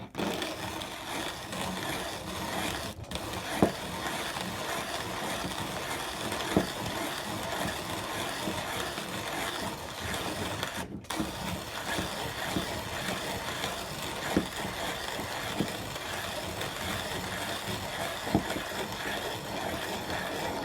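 Peter Dienes (PeDe) model 520 manual conical burr coffee grinder grinding a dose of beans at its finest setting, burrs just touching: a steady grinding noise with scattered sharp cracks, breaking off briefly twice, about three and eleven seconds in.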